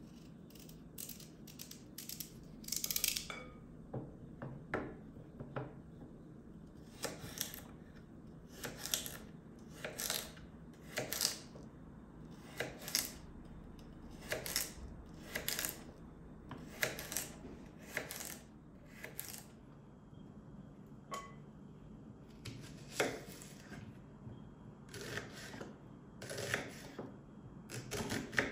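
Kitchen knife chopping through raw carrot and then onion, each stroke knocking on a wooden cutting board: irregular crisp chops about one a second, with a short pause about two-thirds of the way through.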